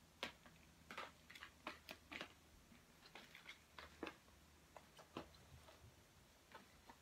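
Faint, irregular clicks and light taps over quiet room tone, a dozen or more spread unevenly with no steady rhythm.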